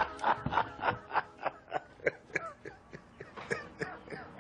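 A person laughing in a run of short chuckles, about three a second, fading toward the end.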